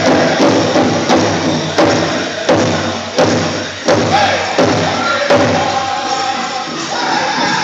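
Powwow drum group singing a chicken dance song in high voices over steady strokes on the big drum, about one and a half beats a second.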